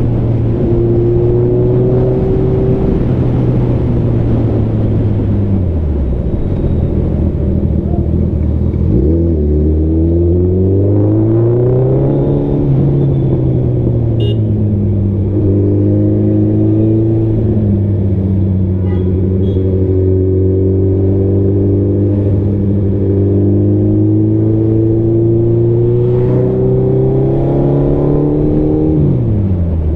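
Superbike engine under way, its pitch rising and falling as the throttle opens and closes. It dips and recovers sharply about six seconds in and again near the end, and climbs and falls back around ten to fourteen seconds in.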